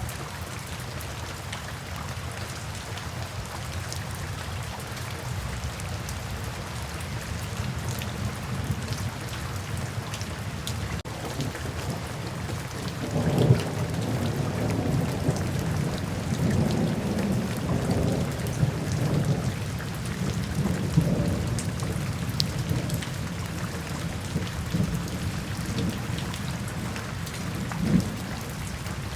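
Steady rain, with a long low rumble of thunder rolling in about halfway through and lasting several seconds, and a short low crack near the end.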